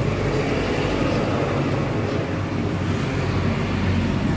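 Small single-cylinder scooter engine running steadily at idle, a low even drone.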